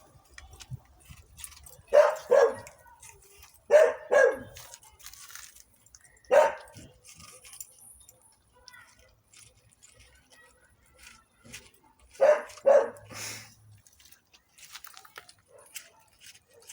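A dog barking in short bursts: two quick barks, then two more, then a single bark, and after a pause of several seconds two more barks.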